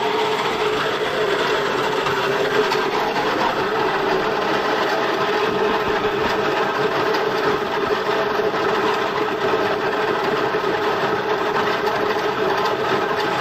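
Motor-driven corn grinding mill running steadily, grinding dried corn into meal, with a constant hum under its grinding noise.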